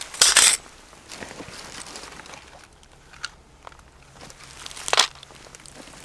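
Flat metal panels of a folding wood stove set down in a stack on a fleece blanket, making a short, loud scrape of metal on metal about a quarter second in. Light handling rustles follow, with a small click a little after three seconds and a sharp tap about five seconds in as a matchbox is laid on the stack.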